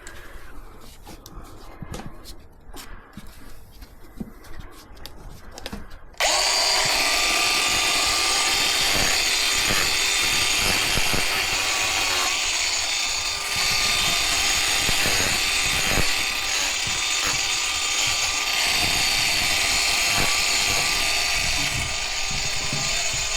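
Angle grinder switched on about six seconds in after some soft handling noises, then running steadily as it grinds down a miniature horse's hoof, its pitch dipping briefly now and then.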